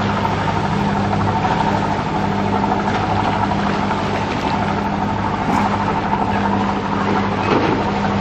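A boat engine running steadily, heard from on board: an even low hum with a higher tone above it, over a wash of water and wind noise.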